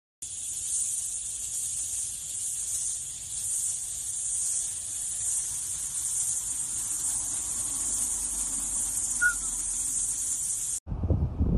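Steady high-pitched hiss, like an insect chorus, with one short chirp about nine seconds in. It cuts off suddenly near the end.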